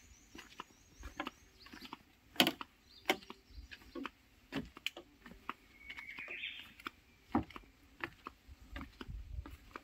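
A bird gives a short, rising, chirring call about six seconds in. Sharp knocks and taps are scattered throughout, the loudest about two and a half seconds in.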